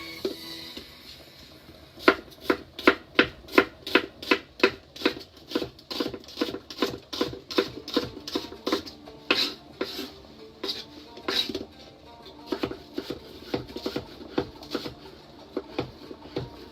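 Knife chopping an onion on a cutting board: a steady run of sharp knocks, about three a second, starting about two seconds in.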